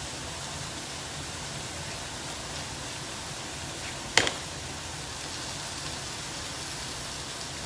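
Steady hiss of chicken pieces sizzling in a frying pan, with one sharp click about four seconds in.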